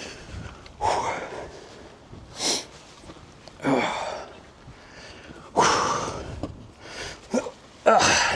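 A man's heavy breathing from exertion on a steep uphill climb: about six hard, noisy puffs and sniffs through the nose and mouth, spaced irregularly, close to the microphone.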